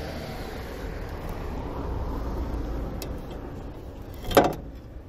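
A passing road vehicle: a low rumble that swells and then fades. A short sharp noise comes near the end.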